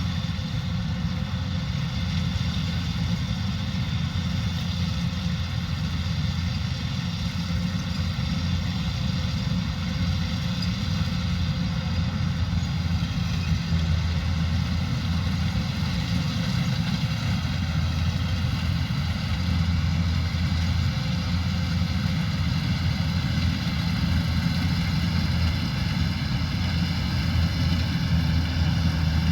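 Kubota combine harvester's diesel engine running steadily at constant speed, a low drone with a steady whine of machinery above it.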